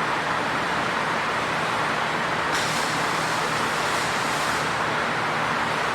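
Forrest Manufacturing Model 480A horizontal bandsaw running with a steady machine noise, its blade set to a slower-than-usual speed for cutting aluminum. About two and a half seconds in, a higher hiss joins for roughly two seconds, then stops.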